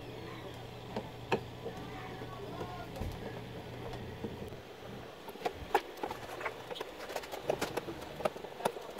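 A long screwdriver working the screws in a monitor stand's neck: from about halfway through, a scatter of sharp, irregular clicks of the tool and screws, over a low steady hum.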